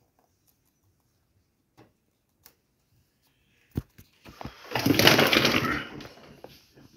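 Near silence with a few faint ticks, then a sharp click and a loud burst of rustling and crackling in a guinea pig cage's wood-pellet bedding and hay, lasting about a second and a half and fading out near the end.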